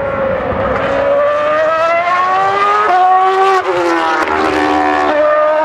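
2012 Formula One car's 2.4-litre Renault V8 (Red Bull) running at high revs as it accelerates past, its high engine note climbing in pitch and dropping sharply at gear upshifts about three and a half and five seconds in.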